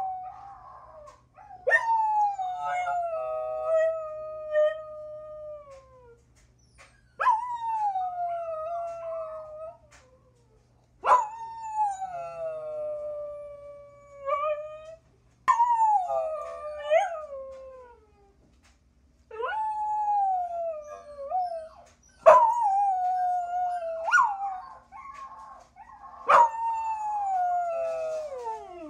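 A one-year-old mixed-breed dog howling, about seven long howls in a row. Each starts high and slides down in pitch, some with a wavering upturn near the end, and short pauses come between them.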